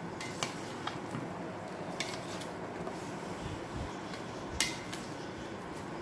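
Plastic serving spoon stirring chopped fruit in a stainless steel bowl, knocking against the metal in four sharp clicks, the loudest about four and a half seconds in.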